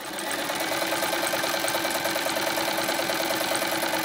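Domestic electric sewing machine stitching sheer fabric: it comes up to speed in the first half second, then runs steadily at a fast, even stitching rhythm.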